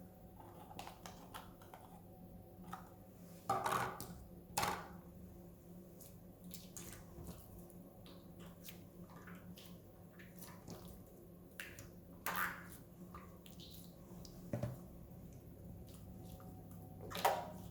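Slime being squeezed and stretched by hand, giving scattered sticky clicks and pops, with a handful of louder snaps among quieter crackles.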